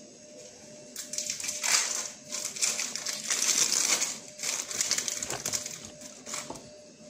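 Crinkling, crackling handling noise with many small clicks, starting about a second in and lasting about four seconds, then dying down.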